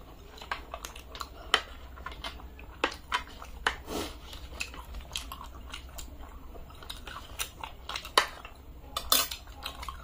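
Metal spoons scraping and clicking against small foil trays, mixed with close-miked chewing and mouth sounds of people eating a soft milk sweet (malai chum chum); a scatter of sharp clicks, the loudest about nine seconds in.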